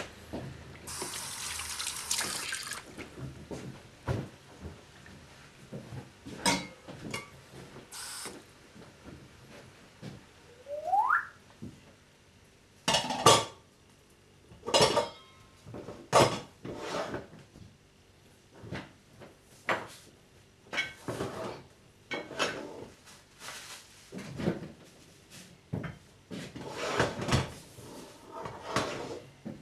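Kitchen clatter: a tap runs for about two seconds near the start, then dishes, pans and cutlery knock and clink in scattered bursts, with a short rising squeak about a third of the way through.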